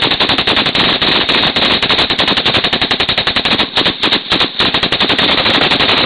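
Machine gun firing fully automatic: a long, rapid, continuous rattle of shots that breaks into a few short bursts a little past halfway, then runs on unbroken.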